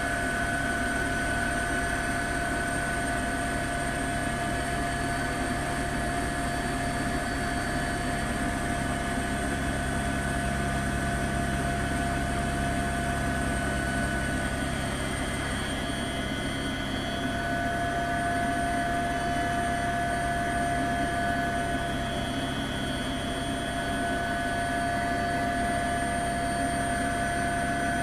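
Steady helicopter noise: the turbine whine, a few held tones over a constant hiss, with the low, fast pulsing of the rotor underneath.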